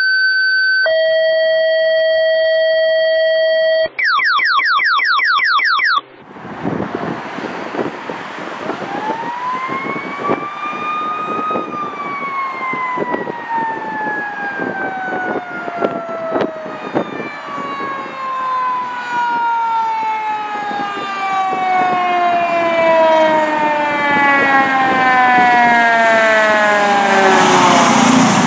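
For the first six seconds an electronic intro plays: steady held tones, then a rapid run of rising sweeps. Then a fire engine's mechanical siren winds up, peaks, and slowly coasts down in pitch for more than fifteen seconds as the engine approaches. Near the end the truck's engine and tyres grow loud as it passes close by.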